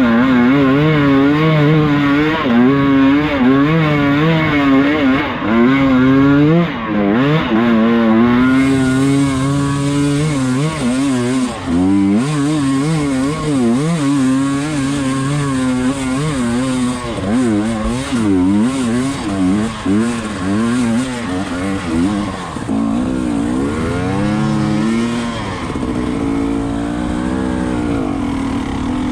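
Enduro motorcycle engine under way, its revs rising and falling constantly as the rider works the throttle over rough ground, then settling to a steadier, lower note near the end.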